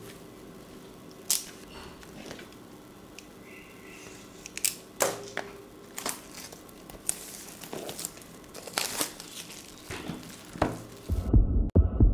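Clear plastic shrink wrap crinkling and tearing as it is peeled off a smartphone box, in scattered rustles and sharp snaps. About a second before the end, loud deep low thuds of a logo intro sting begin.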